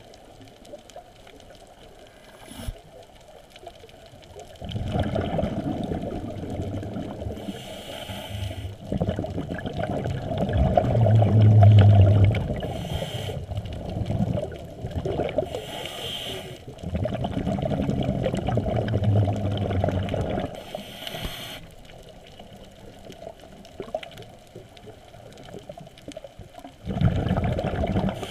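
Muffled underwater rumble of bubbles and moving water, heard through the camera's housing. It comes in stretches a few seconds long, with quieter gaps between; the loudest is a little over a third of the way in.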